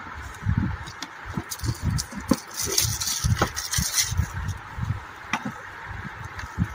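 Handling noise from an impact drill and its plastic side handle being picked up and fitted: scattered light knocks and clicks, with plastic wrapping crinkling about three seconds in.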